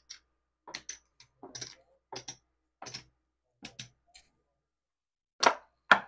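Casino chips clacking together as they are counted out and stacked, in short, mostly paired clicks about every three-quarters of a second, with two louder clacks near the end.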